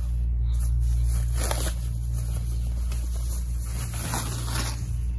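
Thin white protective wrapping rustling and crinkling as it is handled and pulled off a boxed oscilloscope, with two rustles, one about a second and a half in and a longer one near the end, over a steady low hum.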